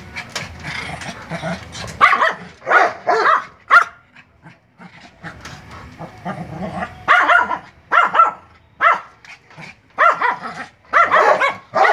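A small dog barking in quick, high-pitched yaps, about a dozen barks in two bouts with a short pause between them.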